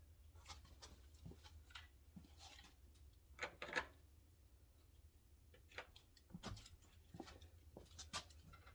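Faint, scattered clicks and rustles of tools and parts being handled, over a low steady hum.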